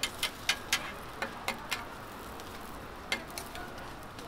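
Metal spatulas clacking against each other and the flat-top griddle in quick sharp taps, about seven in the first two seconds and two more near the end, over the steady sizzle of millet pancakes frying in oil.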